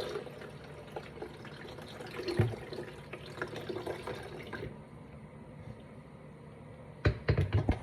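Water running and filling a container, cutting off abruptly about four and a half seconds in, followed by a few sharp knocks and clatter near the end.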